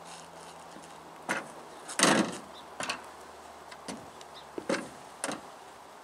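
A series of knocks and clanks, the loudest a longer clatter about two seconds in, from oars and gear being handled and laid into an aluminum rowboat on a wooden dock.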